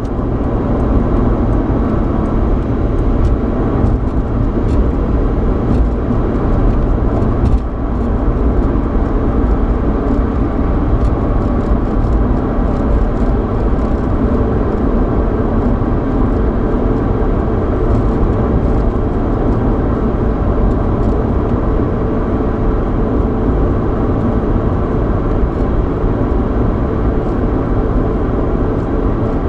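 Inside the cabin of a moving 3.8-litre V6 Mustang: steady road and tyre noise over a low engine hum, with a few faint clicks.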